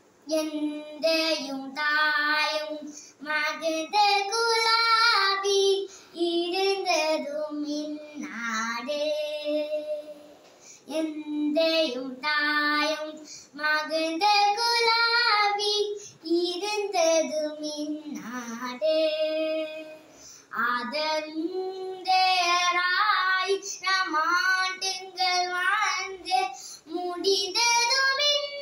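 A young girl singing solo and unaccompanied, in sung phrases of a few seconds with short breaks for breath between them.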